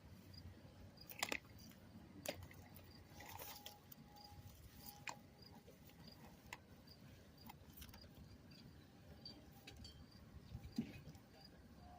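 Faint, scattered clicks and light metal clinks of tools and bicycle parts being handled during a repair, with a faint high tick repeating about twice a second underneath.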